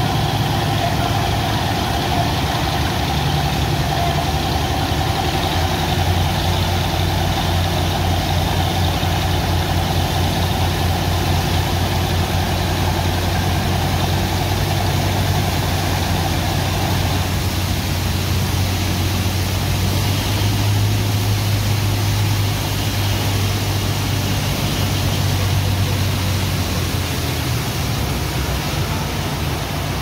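Sand-dredger pump engine running steadily with a low drone, over the rush of a water jet and wet sand slurry being sucked up the suction pipe. The low drone eases near the end.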